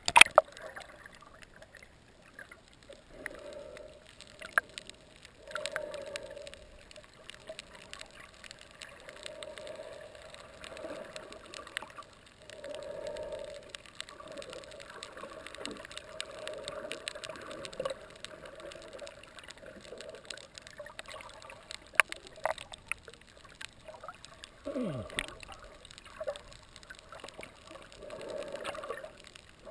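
Shallow reef water heard through an underwater camera housing: surge washing in and out, swelling and fading every couple of seconds, with scattered sharp clicks. A loud sharp hit at the very start as the camera sits at the surface.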